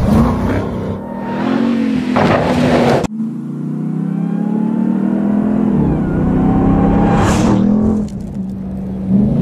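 The supercharged 6.2-litre V8 of a Ram 1500 TRX revving hard, its pitch rising and falling with the throttle as the truck slides on dirt. Two loud rushing swells come about two seconds in and again past seven seconds. The sound breaks off abruptly about three seconds in and again near eight seconds.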